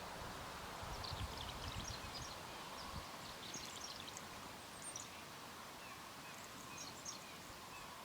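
Small songbirds twittering, with many short high chirps scattered throughout, faint against the outdoor background.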